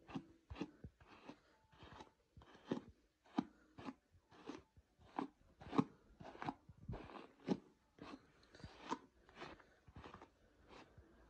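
Plastic hairbrush pulled through a child's short hair in quick, even strokes, a soft scratchy brushing sound about one and a half times a second.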